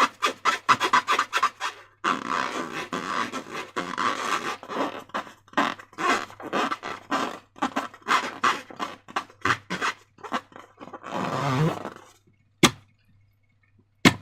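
Slime being squeezed and worked by hand, a fast, irregular run of wet squelching and crackling strokes that stops about 12 seconds in, followed by two sharp clicks.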